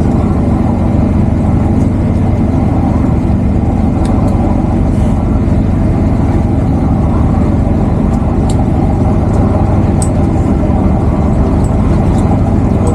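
Fishing boat's engine running, a steady low drone with a few faint clicks over it.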